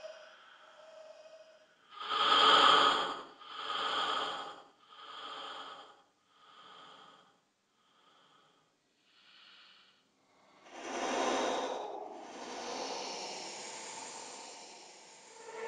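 Creepy breathy vocal horror effect: six raspy breaths about a second and a half apart, each fainter than the last, then a louder breath a few seconds later that trails off into a long hiss.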